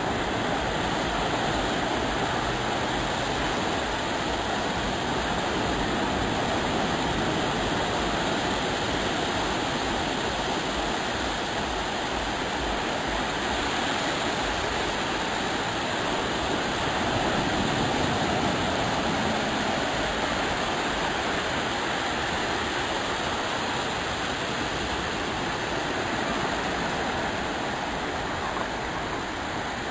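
Small waves breaking and washing up a sandy beach: a steady rush of surf that swells and eases gently.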